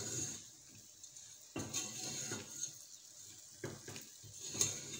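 A spatula stirs roasted almonds in melting sugar in a stainless steel saucepan, scraping and knocking against the pan in separate strokes a second or two apart. The sugar is melting into caramel around the nuts, the stage when a praline mixture comes back together.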